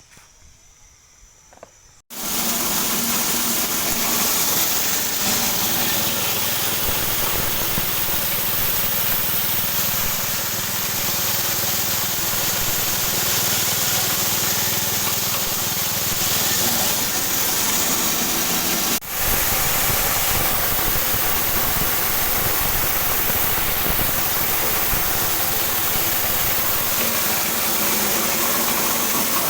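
A motor-driven feed chopper and hammer mill running loud and steady, its rotor and hammers grinding feed material. It starts suddenly about two seconds in, with a brief break near the middle.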